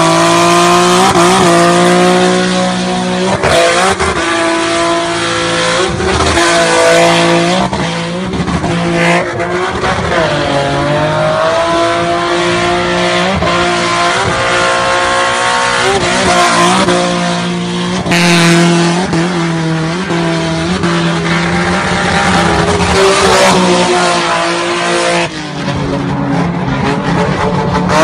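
Car engine held at high revs during a burnout, its pitch dipping and climbing back again and again while the rear tyres spin and squeal through smoky donuts; the revs fall away briefly near the end.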